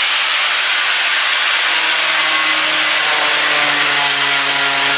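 Angle grinder fitted with a flap sanding disc, running and sanding the surface of a wooden beam: a loud, steady hiss. About two seconds in, a lower hum joins it.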